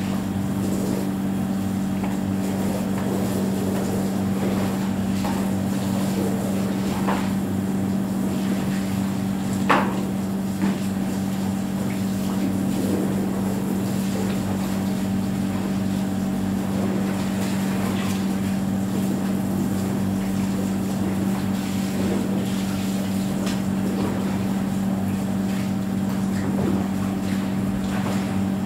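A motor humming steadily, with a single sharp knock about ten seconds in.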